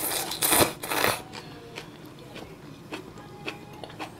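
A person slurping ramen noodles, a loud noisy pull that stops about a second in, followed by quiet chewing with small wet clicks.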